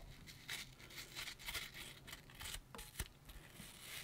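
Faint, irregular scraping and cutting strokes into the flesh of a soft apple as it is hollowed out and evened up to make a shisha bowl, with a light tap about three seconds in.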